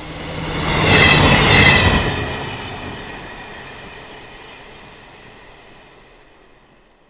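A train passing by: it swells to its loudest about one to two seconds in, with a high-pitched whine over the rumble, then fades slowly into the distance.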